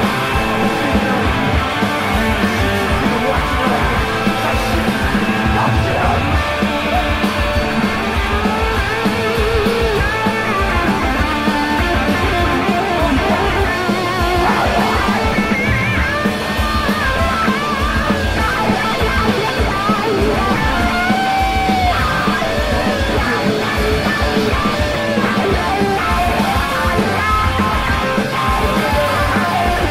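Guitar-driven punk rock recording: a full band with electric guitars over a steady, driving beat.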